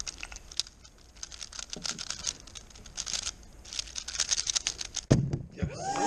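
A MoYu Weilong WRM 3x3 speed cube being turned very fast through a speed solve, a rapid run of plastic clicks and rattles from the layer turns. A thud about five seconds in as the solve ends, with the cube set down and the hands slapping the timer.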